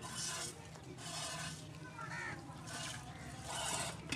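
Streams of milk squirting into a milking pail as a cow is milked by hand, a rhythmic series of short hissing spurts at roughly one a second.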